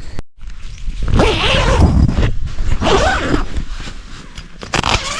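Tent door zip being pulled, two long zipping strokes, about a second in and again about three seconds in.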